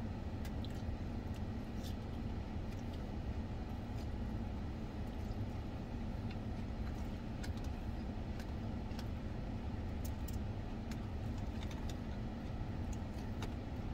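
Steady low hum inside a car's cabin from the running vehicle and its climate fan, with faint scattered crunches and clicks of salad being chewed and a plastic fork working in a plastic container.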